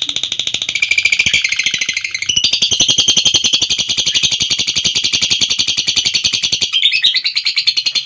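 Lovebird's long unbroken 'ngekek' chatter: a rapid, high, buzzy run of about a dozen notes a second that keeps going without a pause, shifting its pitch slightly twice.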